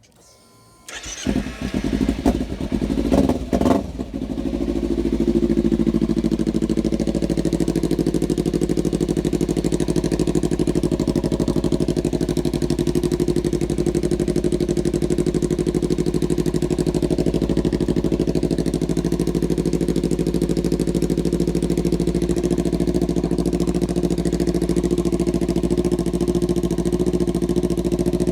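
Kawasaki Ninja 300's parallel-twin engine, breathing through a Kajimotor slip-on exhaust, starting about a second in with a few uneven revs, then settling into a steady idle from about four seconds on.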